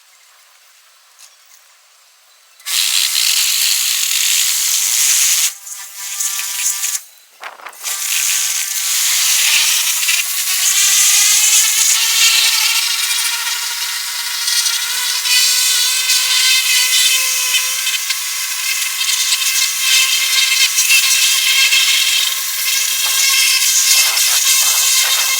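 Pressure washer spraying a water jet against the truck's bodywork, starting about two and a half seconds in and breaking off briefly twice. After the second break the pump's whine rises in pitch and then holds steady under the hiss of the spray.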